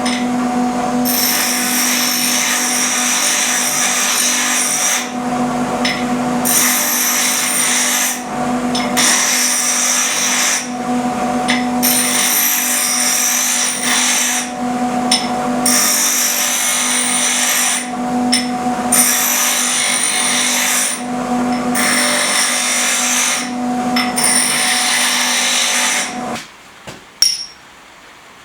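Electric grinder running on steel: a steady motor hum with repeated grinding passes, each a second or two long, separated by short breaks. The motor cuts off near the end.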